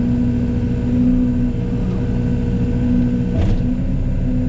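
Yanmar Vio80 excavator's diesel engine running steadily with a constant hum, with one short knock about three and a half seconds in.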